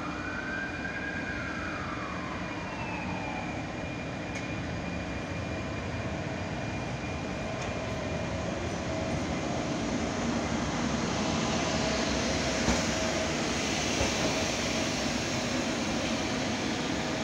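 ČD class 380 (Škoda 109E) electric locomotive moving slowly on a shunting run, its steady hum and rolling noise growing louder as it draws close and passes. A high whine rises and falls in the first few seconds, and a few sharp clicks come in the second half.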